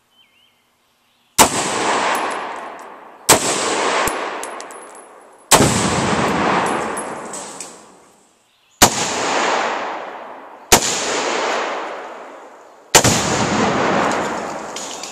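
Adcor Bear Elite 10.5-inch short-barrelled AR-15 firing 5.56 rounds one at a time: six loud shots about two seconds apart, each followed by a long rolling echo that fades away.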